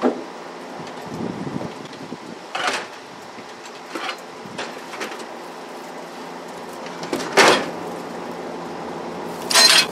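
Knocks and clatter of cargo being pulled out of a pickup truck bed: a cardboard box, then a metal two-wheeled hand truck bumping against the bed and tailgate. There is a sharp knock at the start, several lighter knocks, and two louder clunks about seven and a half and nine and a half seconds in.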